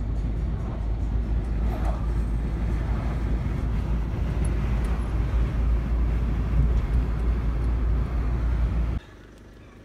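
Road noise inside a car cruising on a motorway: a steady low rumble of tyres and engine that cuts off suddenly near the end.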